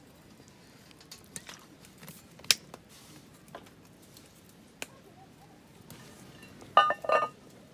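Tableware at a meal: scattered light taps and clicks, then near the end a quick run of louder clinks that ring briefly, as of dishes, pots or utensils knocking together.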